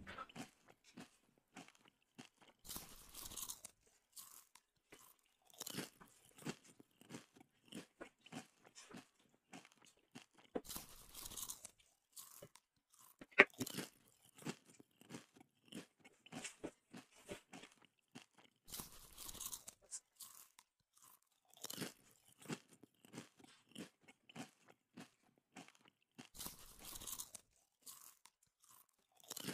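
Close-up chewing of chicken feet: short crunches and clicks as skin, cartilage and small bones crack between the teeth. Longer, noisier crunches come roughly every eight seconds, and there is one sharp, loud crack about 13 seconds in.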